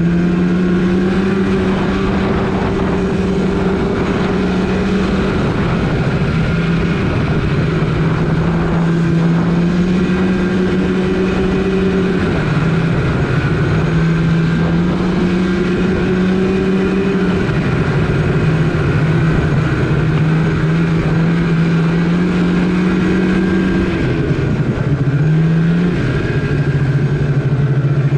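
Polaris RMK snowmobile's two-stroke engine running under way, its pitch stepping up and down every few seconds as the throttle changes.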